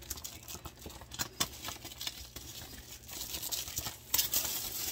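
Cellophane shrink-wrap being torn and peeled off a cardboard kit box, crinkling and crackling irregularly, with louder crinkling about four seconds in.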